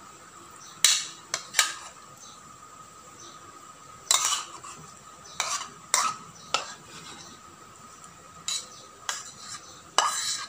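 Metal spoon scraping and knocking against plastic bowls as chunks of raw chicken are scooped into a food-chopper bowl: short, sharp clinks and scrapes at irregular intervals, about a dozen in all.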